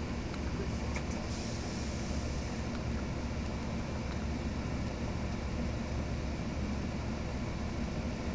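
Cummins ISL inline-six diesel of a 2008 Gillig Phantom transit bus running steadily, a low, even hum heard from inside the bus. A short hiss comes about a second and a half in.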